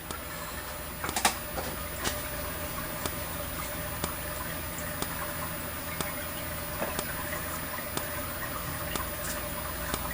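Strobe of a Potter SH-1224 horn/strobe flashing with its horn silent: a faint tick about once a second, over a steady hum and hiss.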